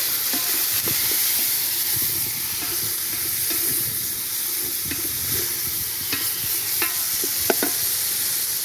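Onions and freshly added tomatoes sizzling in hot oil in a sufuria cooking pot, with a utensil stirring and now and then knocking against the pot.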